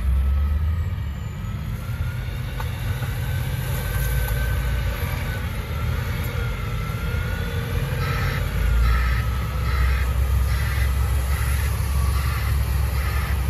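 Engine of a sidewalk snow-plow tractor running with a steady low rumble. From about eight seconds in, a reversing alarm pulses about every two-thirds of a second.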